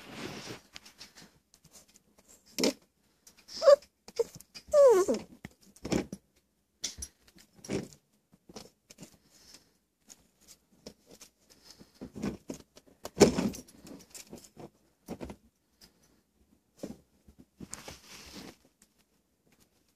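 Seven-week-old Pembroke Welsh corgi puppy giving a couple of short, high whines that fall in pitch, about four and five seconds in, among scattered clicks and rustles.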